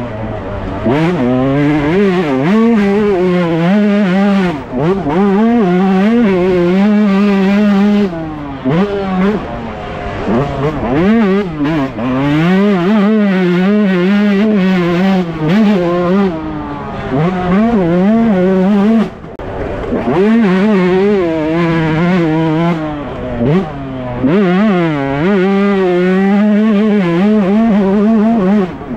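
Yamaha YZ125 two-stroke motocross engine ridden hard, revving up and backing off over and over, its pitch climbing and dropping repeatedly, with several brief dips where the throttle is shut.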